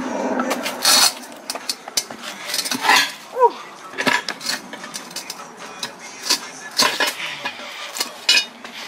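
Steel pry bars clinking and scraping against an alloy wheel rim as a tire bead is levered off by hand: irregular sharp metallic clanks and knocks, with a short rising squeak about three and a half seconds in.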